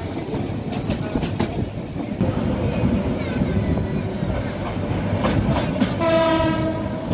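Passenger train running, its wheels clacking over the rail joints, with a single train horn blast about a second long near the end.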